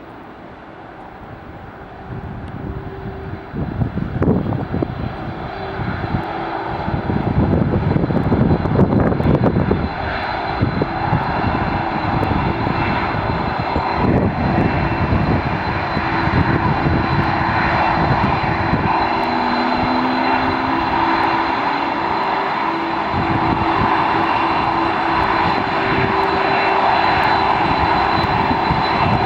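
KLM Boeing 747-400's four jet engines growing louder over the first several seconds as the jet comes closer, then running steadily close by with a constant whine over a broad roar. Wind gusts buffet the microphone in the first half.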